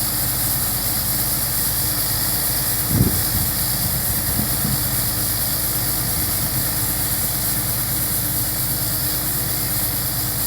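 Combine harvester's diesel engine and machinery running steadily during the soybean harvest, a continuous drone with a hiss on top. A brief low thump about three seconds in.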